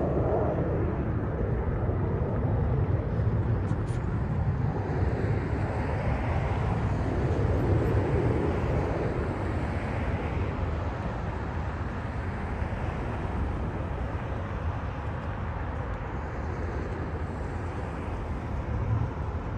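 Steady low rumble of road traffic and distant jet aircraft noise, swelling and easing slightly.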